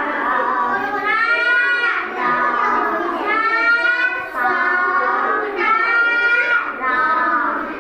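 A young boy reads Hindi words aloud from a blackboard in a drawn-out, sing-song chant. He gives about one long, gliding word every second, with short breaths between them.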